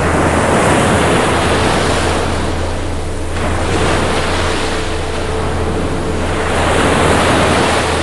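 Ocean surf: waves breaking and washing up the shore, the noise swelling and easing twice, over a steady low rumble.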